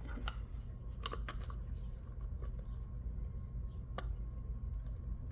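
Small plastic miniature toy table parts being handled and pressed together, with rubbing and a few sharp clicks, the loudest about four seconds in, over a steady low hum.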